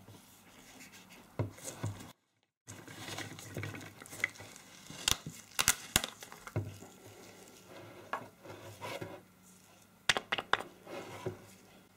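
Handling noises from a 1-litre plastic bottle of engine oil: light knocks and clicks as it is picked up, moved and set down on a wooden table, with the rustle of gloved hands. A quick cluster of clicks about ten seconds in is its cap being opened. The sound cuts out briefly about two seconds in.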